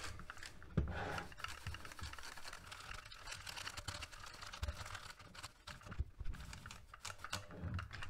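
Brush bristles sweeping over the exposed key switches of a mechanical keyboard with its keycaps removed, dusting between the switches: a dry scratchy rustling with light clicks. A few soft knocks come as the keyboard is handled.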